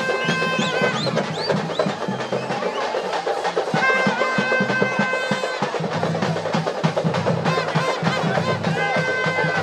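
Traditional festival music: fast, dense drumming with a wind instrument playing long held high notes three times, over a steady low drone.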